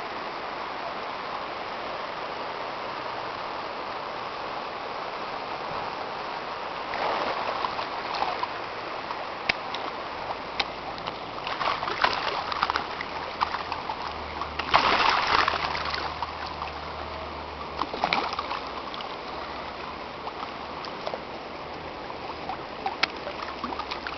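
Steady rush of flowing river water with several splashes, the loudest about halfway through, as a person moves in the water.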